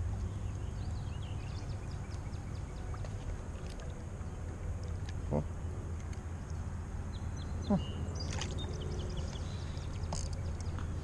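Steady low rush of flowing stream water, with scattered faint high chirps and a couple of brief knocks or splashes in the second half.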